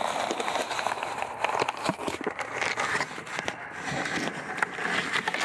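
Plastic packaging crinkling and rustling with many small crackles as hands rummage inside a cardboard wine kit box to pull out the grape bag.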